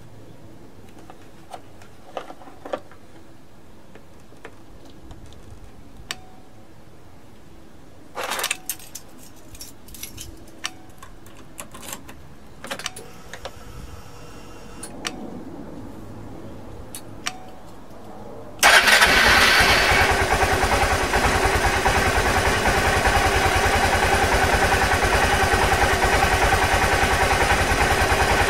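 Scattered light clicks and a short rattle. About 19 seconds in, a Suzuki Skywave CK43A scooter's single-cylinder engine starts suddenly and runs steadily, jump-started from a portable jump starter because its aging battery is weak.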